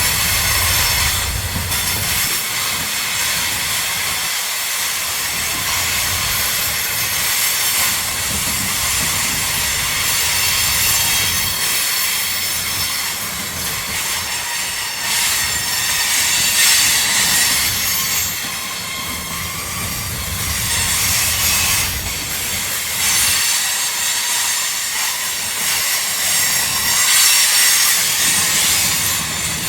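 Freight train cars rolling through a curve, with wheels squealing against the rails over a steady clatter and low rumble that swells and fades.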